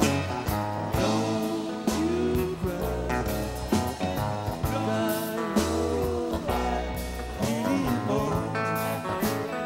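Band playing an instrumental passage: a lead guitar line bending and gliding in pitch over bass and drums.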